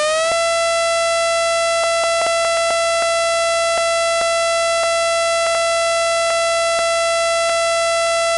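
Tornado warning siren finishing its wind-up just after the start, then holding one steady, loud wail with scattered faint clicks running through it.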